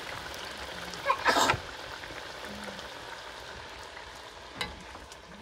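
Pieces of dough deep-frying in hot oil in a metal pan, a steady sizzle. A loud, short burst of noise comes about a second in, and a sharp click near the end.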